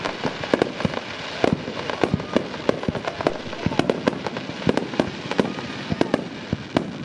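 Aerial fireworks display: a rapid, irregular series of sharp bangs from shells bursting, several a second.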